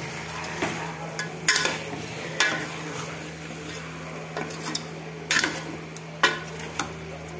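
Steel spoon stirring and sautéing marinated chicken in a steel pot, the chicken sizzling lightly in oil while the spoon scrapes and knocks sharply against the pot several times. A steady low hum runs underneath.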